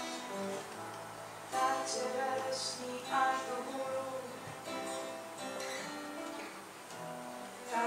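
Acoustic guitar strummed and plucked, with a voice singing over it in a few phrases.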